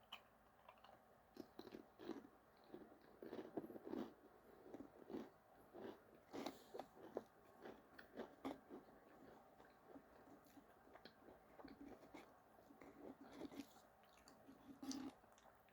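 Faint chewing of Pringles potato crisps: irregular small crunches and mouth sounds.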